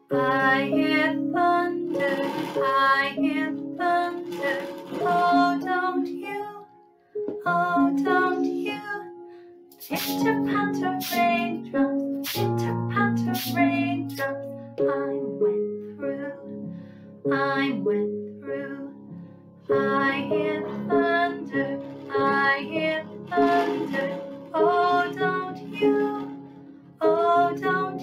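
A song with plucked-string accompaniment and a steady beat, with a cluster of sharp percussive hits about midway through.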